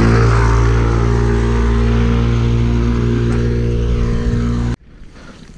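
Motor scooter engine running loud and steady close by at an even speed, cutting off suddenly near the end.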